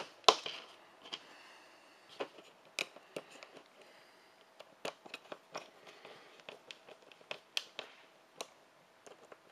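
Scattered light clicks and taps of a laser-cut plastic case being handled and set down on a table, at irregular intervals, with the loudest knock just after the start.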